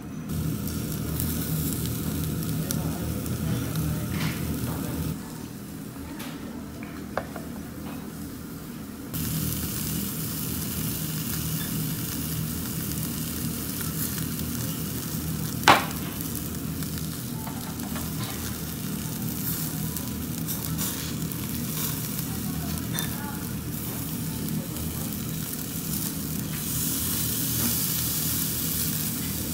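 Slices of beef rib loin sizzling on a wire grill over charcoal, a steady hiss that drops quieter for a few seconds early on. A single sharp click sounds about halfway through.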